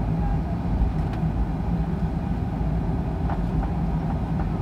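Jet airliner taxiing, heard from inside the cabin: a steady low rumble and hum from the engines at low power and the cabin air, with a couple of faint clicks.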